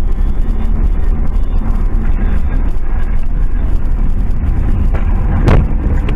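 Steady low rumble of a car's engine and tyres heard from inside the cabin on a dashcam, with one sharp knock about five and a half seconds in.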